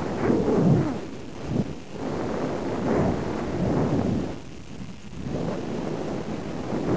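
Wind buffeting the microphone of a camera riding on a stratospheric balloon payload: a loud, irregular low rumble and rush that swells and fades every second or so.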